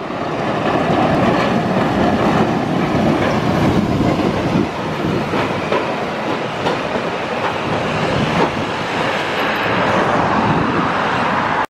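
Kumamoto City Tram electric streetcar running past on street track, its wheels clacking over the rail joints, with steady road traffic noise around it.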